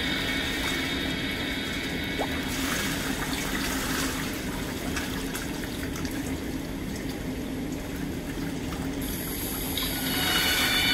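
Water splashing and sloshing close by, strongest from about three seconds in until about nine seconds in, over music that stands out more again near the end.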